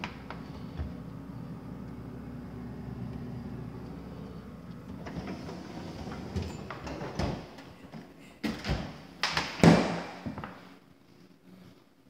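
Refrigerator door and freezer drawer being handled: a low steady hum, then several sharp knocks and thuds over a few seconds, the loudest about ten seconds in, as they are pushed shut.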